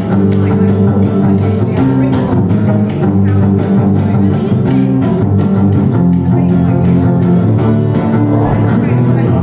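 Acoustic guitar strummed in a steady rhythm, about four strokes a second, playing an instrumental passage of chords.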